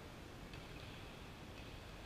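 Faint, steady room tone of a large indoor sports hall, with faint distant sounds about half a second in and again near the end.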